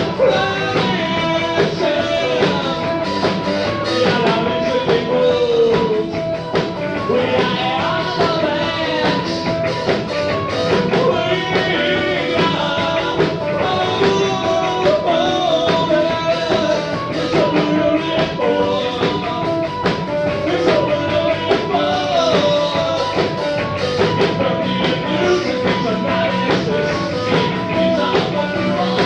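New wave rock band playing live, heard through a lo-fi concert recording with dull, muffled highs. Singing and guitar sit in the mix, and a steady high tone runs beneath the music.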